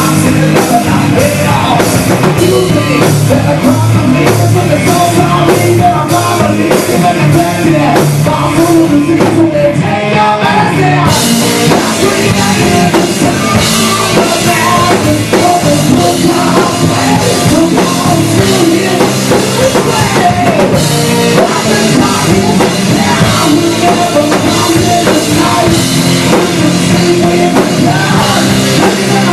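Rock band playing a hard-rock song: distorted electric guitars, bass and a drum kit driving a steady beat. A heavier wash of cymbals comes in about eleven seconds in and eases off about ten seconds later.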